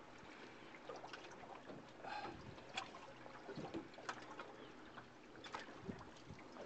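Faint water lapping against a small boat's hull, with a few light clicks and knocks scattered through.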